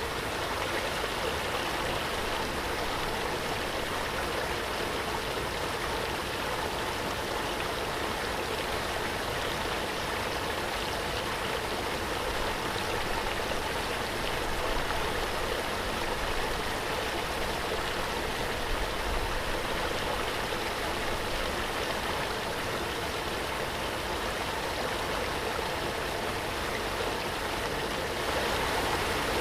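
Waterfall: water pouring and splashing in a steady, even rush with no breaks.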